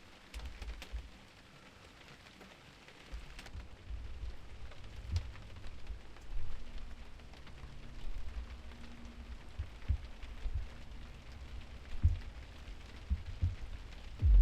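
Steady rain falling, with scattered sharp drips and occasional low thumps.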